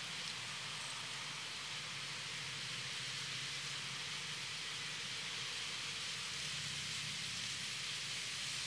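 Steady outdoor ambience: a soft, even hiss of a breeze through trees and tall grass, with a faint low rumble beneath.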